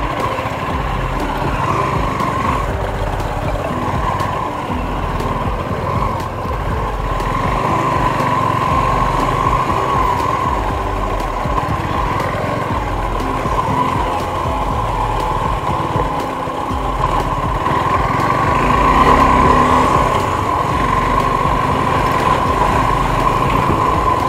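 Suzuki V-Strom SX 250's single-cylinder engine running steadily as the motorcycle is ridden over a dirt track. The engine note swells louder about three-quarters of the way through, then settles again.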